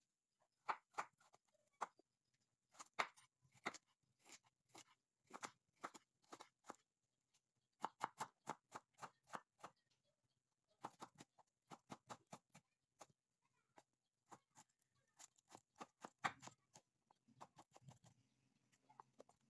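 Kitchen knife slicing a firm raw vegetable into strips on a wooden cutting board: runs of quick chops, each a sharp tap of the blade through the flesh onto the wood, with short pauses between runs.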